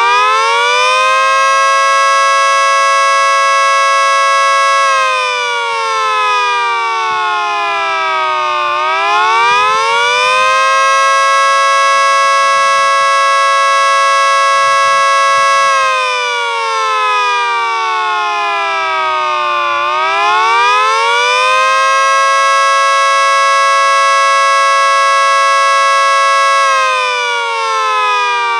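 EMS Mini 3T22B miniature outdoor warning siren sounding the wailing Attack signal. A two-note chord rises, holds steady for about five seconds, then falls slowly, in a cycle about every eleven seconds, three times over.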